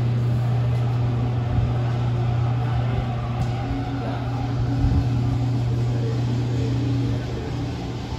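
Steady low machine hum, with a couple of light knocks from parts being handled at the front of an engine block.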